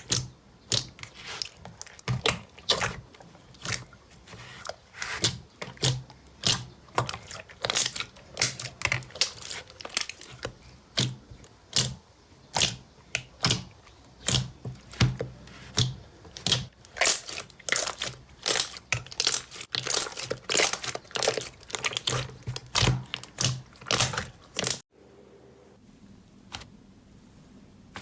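Slime being squeezed and poked by hand, giving quick irregular sharp pops and crackles several times a second. About 25 seconds in it cuts to a much quieter stretch with only a few single clicks.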